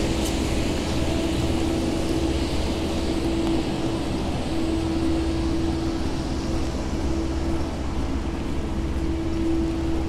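Steady city street noise of traffic running on wet roads, with a steady mid-pitched hum that drops out briefly about four seconds in.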